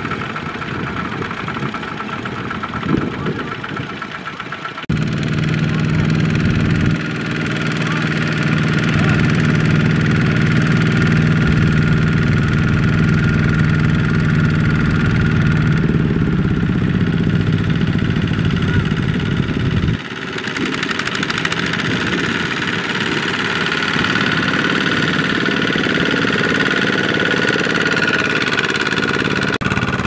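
Single-cylinder diesel engine of a two-wheel walking tractor running steadily under load, hauling a sack-laden trailer through deep mud. The engine note changes abruptly about five seconds in and again about twenty seconds in.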